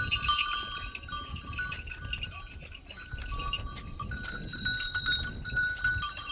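Several bells on a flock of sheep and goats ringing and clinking, overlapping tones starting and stopping as the animals move, over a low rumble.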